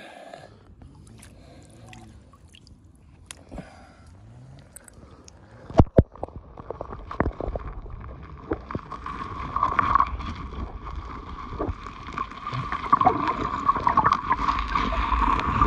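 Light water sloshing as a grass carp is held and let go at the surface. About six seconds in there are two sharp knocks as the microphone goes under water, and after that there is muffled underwater gurgling and rumble with a steady tone running through it, growing louder toward the end.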